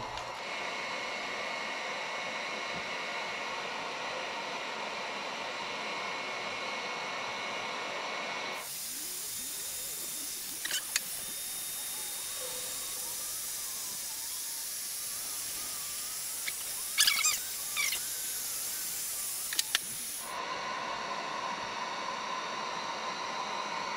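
Heat gun on its low setting blowing steadily: a continuous hiss with a faint motor whine. About nine seconds in, the hiss turns brighter and airier for roughly twelve seconds, with a few light clicks, then goes back to the first sound.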